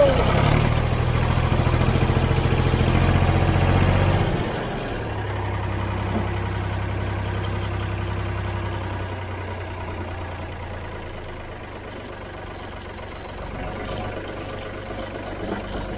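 1965 Ford 3000 tractor's three-cylinder diesel engine running just after its first start in over ten years, very noisy. It is held at higher revs for about four seconds, then drops to a lower, steady idle.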